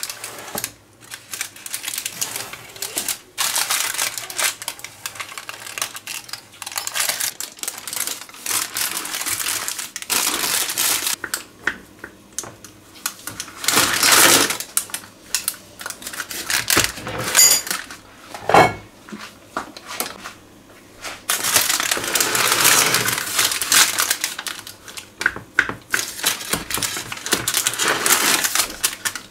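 Knife sawing through the crisp baked crust of a banana pie, with the parchment paper around it crinkling as it is handled: an irregular run of crunches, crackles and scrapes, louder in a few stretches.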